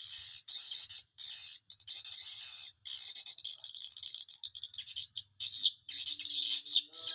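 Swiftlets twittering in rapid, choppy bursts of high-pitched chirps, the din of a swiftlet house at roosting time. A steady low tone sets in about six seconds in.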